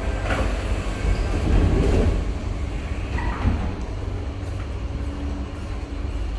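Inside a C151A MRT train car: steady low rumble of the train running. A couple of brief louder noises rise over it, about half a second to two seconds in and again around three seconds in.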